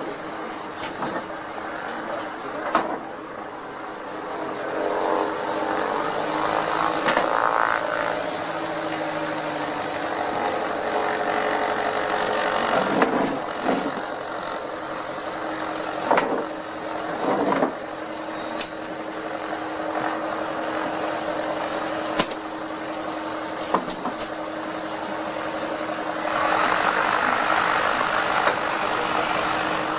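Glider making a rough, too-fast landing and bouncing from pilot-induced oscillation. A steady rushing noise with a hum runs throughout, broken by a series of sharp thumps and bangs as it strikes the ground again and again.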